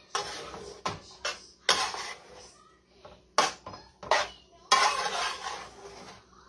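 A utensil clinking and scraping against the sides of a large metal roasting pan as pasta is stirred and tossed. It comes as irregular knocks and short scrapes, the loudest a little before the end.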